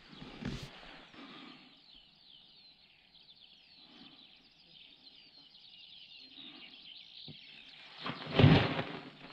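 Many small birds chirping steadily in the background, with a brief loud rush of noise about eight seconds in.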